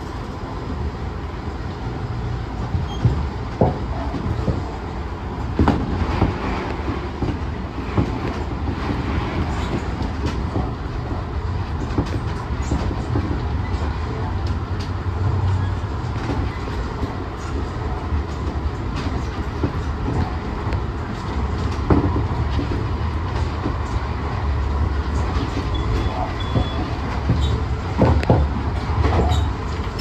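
Tobu Tojo Line electric train running at speed, heard from inside the front car: a steady rumble of wheels on the rails with scattered clacks and knocks from the track.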